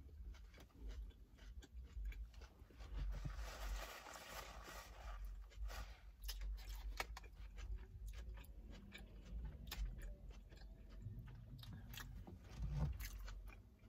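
A person chewing a bite of steak fajita wrapped in a flour tortilla that was pan-crisped in oil, with many small, sharp crunches scattered throughout.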